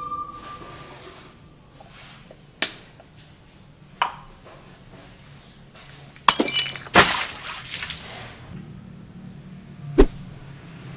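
A few sharp clicks and clinks from handling small plastic bottle caps and a tin can of screen-printing emulsion, with a louder crackling burst in two parts a little past the middle and a knock near the end.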